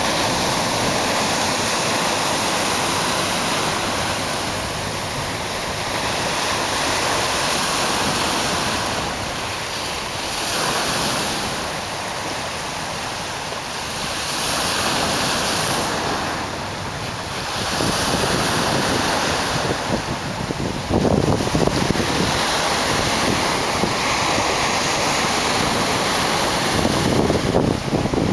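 Choppy Lake Ontario waves breaking and washing over shoreline rocks, the surf swelling and easing every few seconds. In the second half, gusts of wind buffet the microphone with an uneven low rumble.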